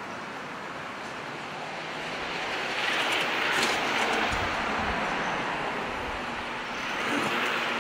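Street traffic: a vehicle passes close by, its tyre and engine noise swelling to a peak about halfway through and fading, with another rising near the end.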